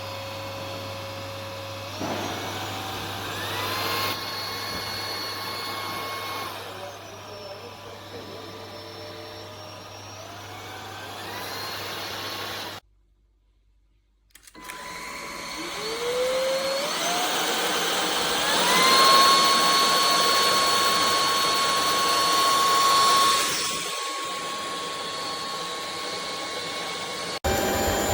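MIUZZY cordless stick vacuum cleaner's motor running with a high whine that steps up and down in pitch as it changes power level. It stops about 13 seconds in and spins back up a second or so later with a rising whine.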